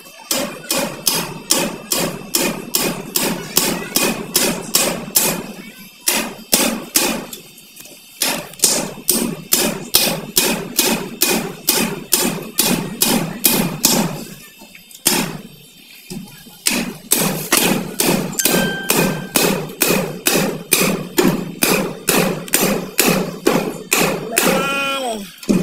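Hammer driving nails into wooden ceiling battens overhead: rapid, steady strikes at about four a second, in long runs broken by two short pauses.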